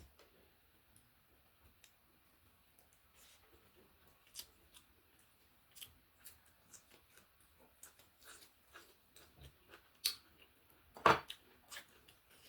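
Close-up eating sounds: a string of short crisp clicks and crunches from chewing, with a louder crunch about eleven seconds in.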